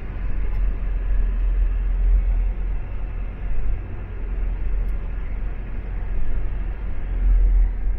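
Car driving at road speed, heard from inside the cabin: a steady low rumble of tyres and engine with road noise.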